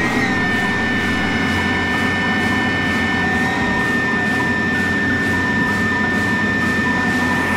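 Case IH Magnum 250 tractor running with its Krone B1000 rear disc mower working: a steady engine drone with a constant high whine from the driveline over it.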